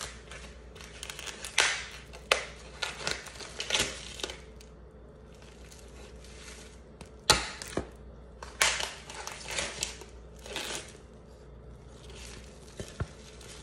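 Plastic meat packaging crinkling and rustling in irregular spurts as steaks are unwrapped and tipped into a baking dish, with one sharp knock about seven seconds in.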